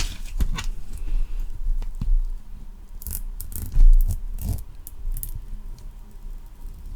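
Close-miked ASMR trigger sounds: irregular taps, scratches and rustles of an object being handled near the microphone, with a few low bumps, the loudest about four seconds in.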